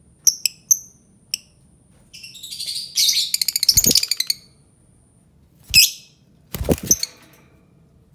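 Albino lovebird calling: a few short sharp chirps, then a rapid chattering run of notes lasting about two seconds, then two more loud calls near the end.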